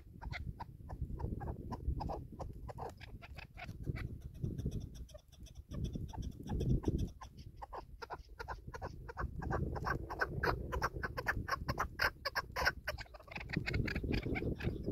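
Chukar partridge calling: a long run of short, sharp chuck notes several a second, quickening and growing louder around ten to thirteen seconds in. Wind rumbles on the microphone underneath.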